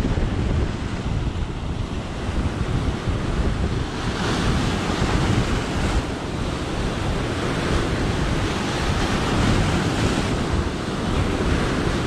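Ocean surf breaking and washing in foam over shoreline rocks, with wind buffeting the microphone. The hiss of the wash swells up about four seconds in and again near ten seconds.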